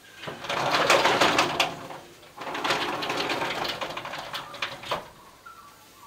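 Rainbow lorikeets chattering at close range in two loud, rapid, rattling bursts, the second starting about two seconds in and stopping about five seconds in.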